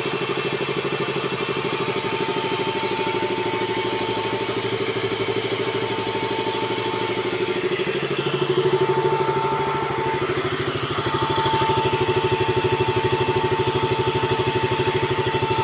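KTM RC 200's single-cylinder engine idling warm with an even pulse, its radiator cooling fan running, a thin steady whine over the engine. The level rises a little about halfway through and again after. The idle holds steady on a newly replaced oxygen (lambda) sensor, without the earlier hunting.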